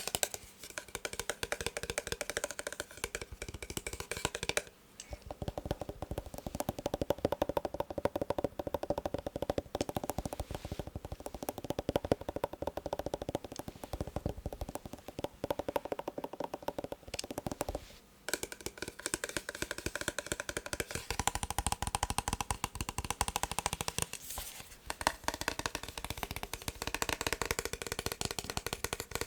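Fast, continuous tapping on a massage gun's hard casing, dense and irregular, pausing briefly about five, eighteen and twenty-five seconds in.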